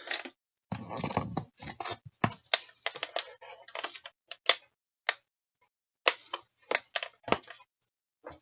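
Irregular sharp clicks and light clattering noises, with short silent gaps between them, typical of small hard objects being handled on a workbench.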